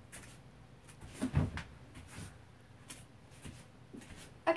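A few knocks and thuds from objects being handled and moved about off to one side, in a small room. The loudest thump comes about a second and a half in, and there is a sharper knock at the very end.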